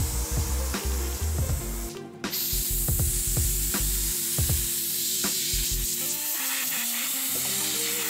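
A garden-hose spray nozzle spraying rinse water over a plastic spoiler, then, after a short break about two seconds in, a compressed-air blow gun hissing steadily as it blows the water off. Background music plays underneath.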